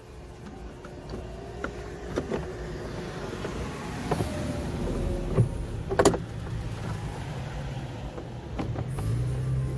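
A plastic interior trim panel being fitted back over the car's side wiring: scraping, with several sharp knocks and clicks as it is pressed into place, the loudest about six seconds in, over a low steady hum.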